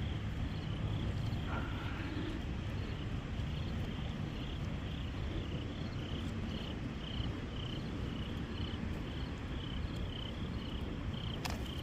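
Insects chirping steadily at night, a short high chirp about twice a second, over a low steady rumble.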